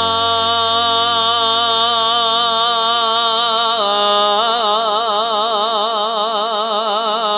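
A solo voice chanting a long, drawn-out note over a low steady drone. About four seconds in, the note drops slightly and takes on a wide, even vibrato, and the drone fades away near the end.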